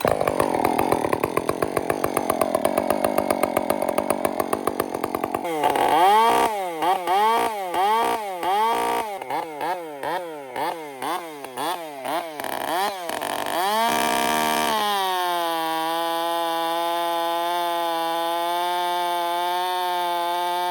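Two-stroke chainsaw with a full-chisel, full-complement 72EXL chain, run hard in a test cut. For about five seconds it runs with a fast pulsing, then its pitch rises and falls over and over, and about fifteen seconds in it settles into a steady, even note.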